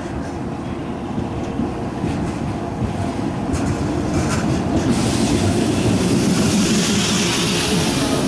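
Yellow JR West Kokutetsu-era electric multiple unit pulling out and gathering speed past the platform, its motor and wheel rumble growing steadily louder. Wheels click over rail joints a few times from about two seconds in, and a rising hiss of the passing carriages builds from about halfway.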